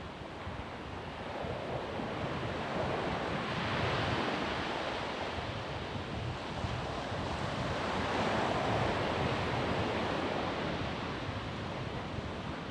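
Ocean surf on a sandy beach: a steady rush of waves that swells twice, once about four seconds in and again around eight to nine seconds, as waves break and wash up.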